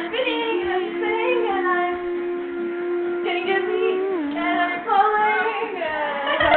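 A girl's voice singing wordlessly over faint background music. She holds one long note for about three and a half seconds, then slides up and down between pitches.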